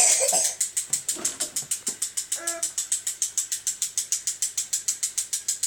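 Battery-powered toy train's motor and gears running, giving a rapid, even clicking of about eight or nine ticks a second. A brief high whine-like sound comes about two and a half seconds in.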